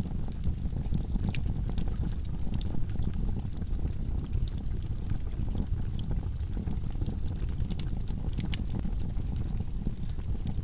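Wood logs burning in a fireplace: a steady low rumble of the flames with irregular crackles and pops.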